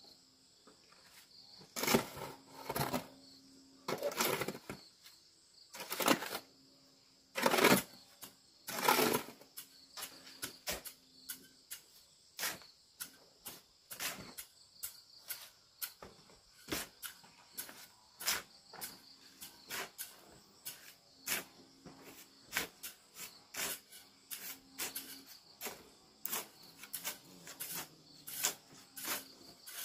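Insects chirring steadily at a high pitch, with a run of short sharp strokes: a few louder, longer ones in the first ten seconds, then quicker, lighter ones every half second or so.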